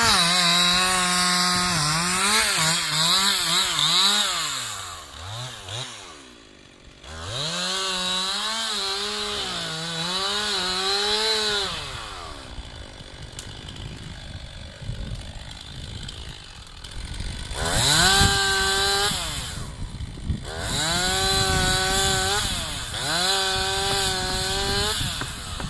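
Chainsaw cutting wood in several loud bursts, its engine pitch sagging and picking up again as the chain bites. There are brief drops in between, and a quieter stretch about halfway through.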